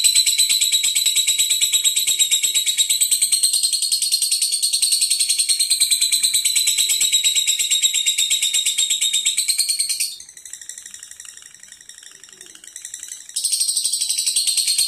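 Lovebird giving a long, rapid, high-pitched chattering trill, the continuous 'ngekek' song. It breaks off about ten seconds in and starts again about three seconds later.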